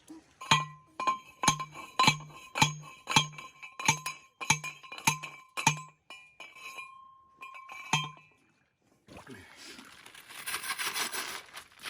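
A steel fence T-post being driven with a post driver: about ten ringing metal strikes, roughly two a second, then a pause and one more strike. A steady rustling noise follows near the end.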